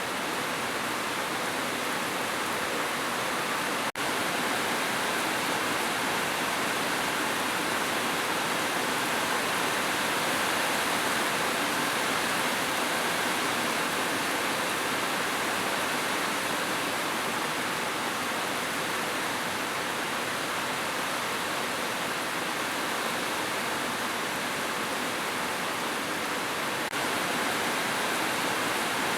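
Steady rushing water, an even continuous hiss with no distinct splashes or drops, briefly dipping about four seconds in.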